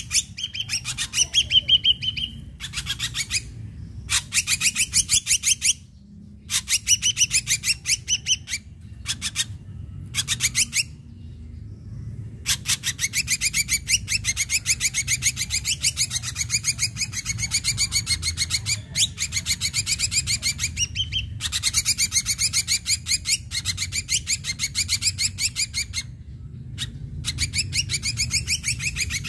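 Ashy drongo singing: long runs of rapid, high, chattering notes repeated many times a second, broken by a few short pauses and running on unbroken through the second half.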